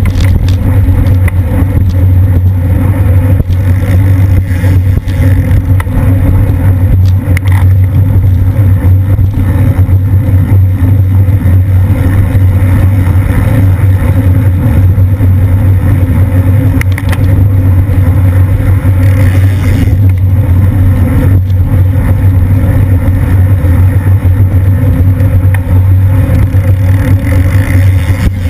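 Wind buffeting the microphone of a camera on a racing bicycle moving at about 20 mph: a loud, steady low rumble, with a few faint clicks.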